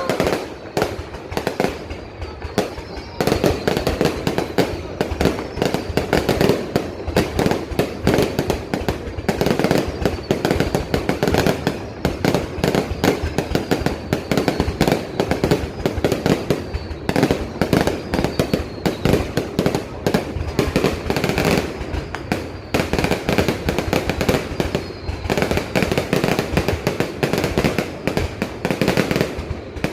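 Fireworks going off in a dense, continuous barrage of bangs and crackles, with a few faint falling whistles now and then.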